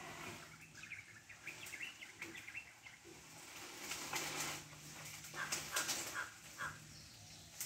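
Leaves and branches rustling and snapping as a wild Asian elephant feeds with its head buried in dense bushes. The crackling comes in bursts, loudest about four and five and a half seconds in.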